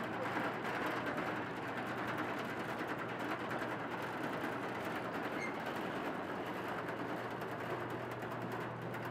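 1935 George White & Sons threshing machine, driven by an electric motor at a fraction of its working speed, running steadily: a continuous clatter and whir of belts, pulleys and shaking parts over a low steady hum.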